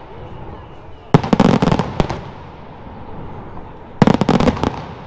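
Aerial firework shells bursting in two rapid volleys of sharp bangs, the first about a second in and the second about four seconds in, with a steady background noise between.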